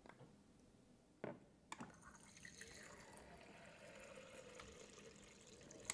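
Water from a refrigerator door dispenser running into the water reservoir of a Hibrew portable espresso maker. Two clicks come a little over a second in, then a steady stream runs whose pitch rises slightly as the reservoir fills, and it stops with a click near the end.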